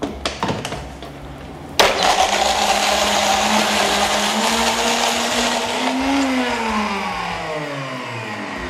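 Alter Blender countertop blender starting suddenly about two seconds in, after a few knocks as the jar is seated on the base, and blending ice with avocado, honey and milk. Near the end its pitch rises briefly, then falls as the motor winds down.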